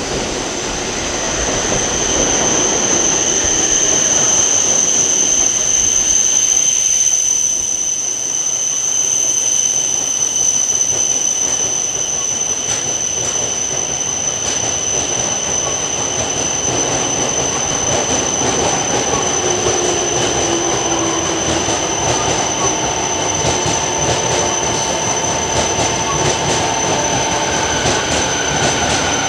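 Shinkansen bullet train running along the station platform, a continuous loud rumble with a steady high-pitched whine held over it.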